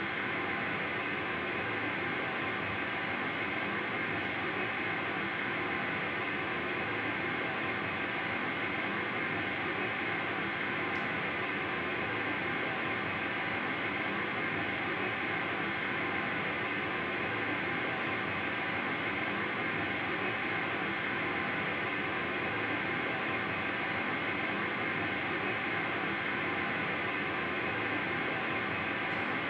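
A live ensemble of about a dozen musicians playing a dense, unchanging wall of noise: a sustained cacophony with no clear beat or melody.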